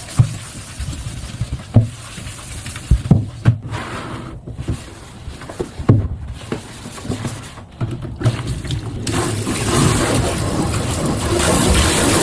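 A series of knocks and thumps, then a steady rush of running water that starts suddenly about nine seconds in and builds a little.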